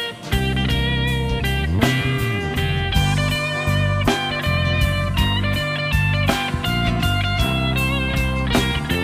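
A live band playing an instrumental passage: guitar lead over bass and drums, with a steady beat.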